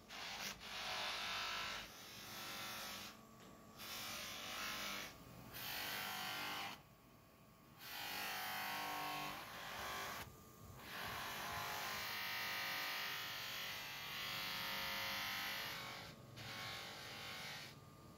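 Cloth buffing wheel on an electric motor's shaft polishing a metal juicer part: a rushing rub that comes and goes about seven times as the part is pressed to the spinning wheel and eased off, over the motor's steady hum.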